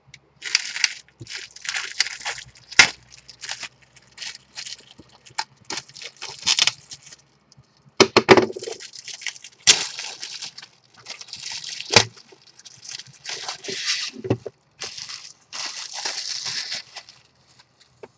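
Clear plastic shrink wrap being peeled and torn off a cardboard box, crinkling and crackling in irregular bursts with a few sharp clicks.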